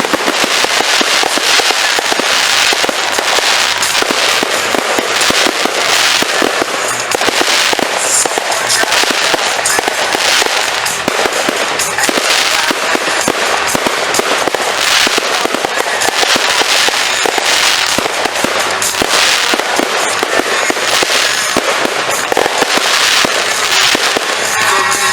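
Fireworks going off in a dense, unbroken run of crackles and pops, with louder bursts about every second.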